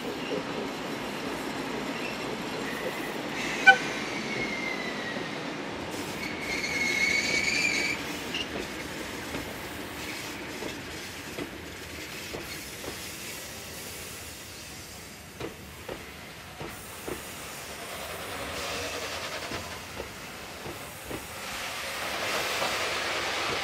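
Freight train of two ED45 electric locomotives and loaded hopper wagons rolling slowly by, with a sharp metallic clank about four seconds in and a brief high-pitched wheel squeal a few seconds later. Later, the wagon wheels click over the rail joints in a regular rhythm.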